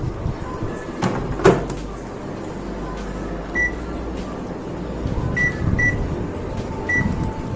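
Microwave oven in use: its door knocks shut about a second and a half in, a steady low hum runs underneath, and the keypad gives four short beeps as the oven is set.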